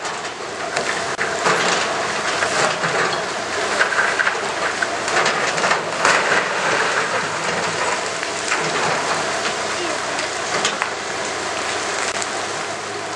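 Masonry rubble from a stone bridge arch crashing and clattering down as hydraulic excavators break it apart, a continuous crackle of falling stone with scattered sharper knocks. The excavators' diesel engines run steadily underneath.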